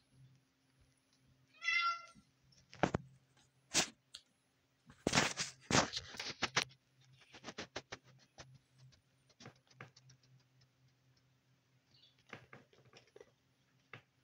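A cat gives one short meow about two seconds in. A run of sharp knocks and clicks follows, loudest and densest around five to six seconds in, then sparser.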